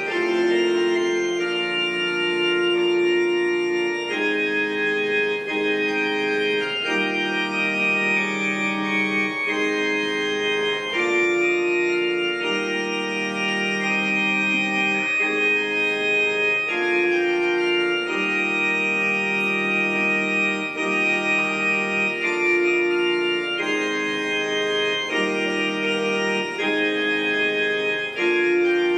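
Organ playing a slow processional of long held chords that change every second or two.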